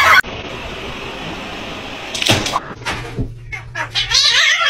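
A steady faint hiss, then a few sharp knocks, and a house cat's wavering meows near the end.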